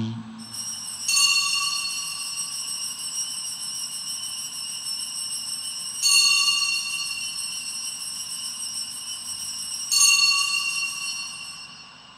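Altar bells rung three times, about four to five seconds apart, at the elevation of the chalice after the consecration. Each ring is a bright, many-toned chime that sustains and slowly fades.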